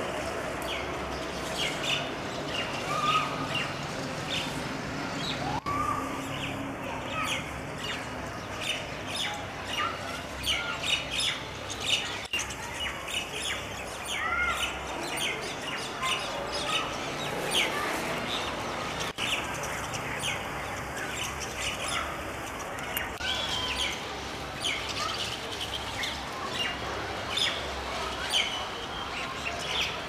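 A flock of starlings chattering at their evening roost: a dense, continuous mix of overlapping chirps, squawks and short rising whistles.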